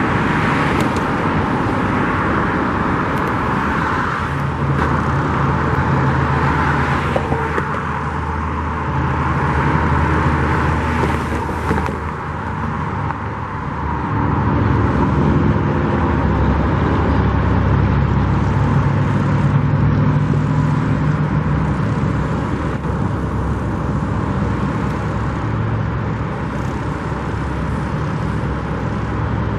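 Steady road traffic: passing cars with an engine hum that swells and fades as vehicles go by.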